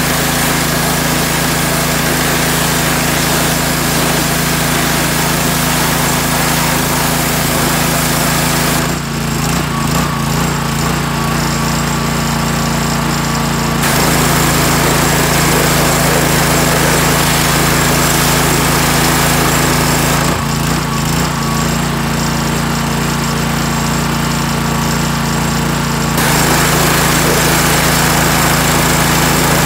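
Gas-engine pressure washer running steadily, its wand spraying a hissing jet of water onto lawn mower decks. The spray stops twice, about nine and about twenty seconds in, for roughly five seconds each, while the engine keeps running.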